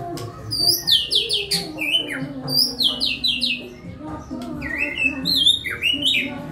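White-rumped shama (murai batu) singing: a fast, varied run of loud whistled phrases, many sweeping down in pitch, with quick series of repeated notes and a brief pause midway.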